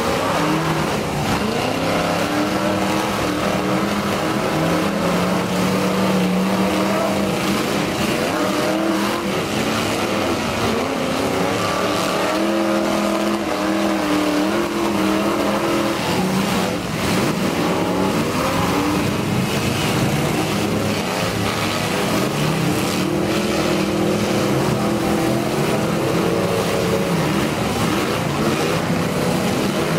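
Several demolition derby cars' engines running and revving together, pitch rising and falling as the cars drive and ram each other, with occasional brief knocks of collisions.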